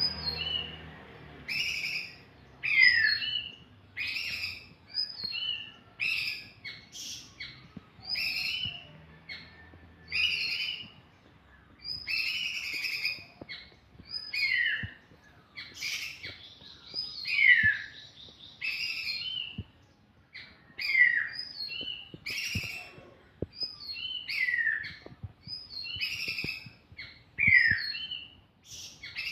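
A songbird singing a long run of short, clear whistled phrases, roughly one a second, many ending in a quick downward slur, with a few faint clicks underneath.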